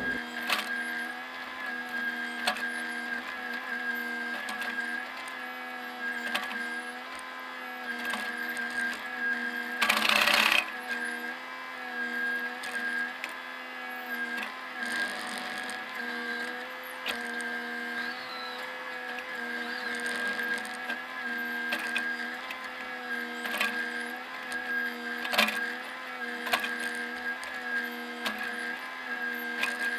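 Bobcat compact excavator's diesel engine and hydraulics running steadily under digging load, the pitch wavering slightly, with scattered knocks and rattles from the cab and arm. A short, loud rush of noise comes about ten seconds in.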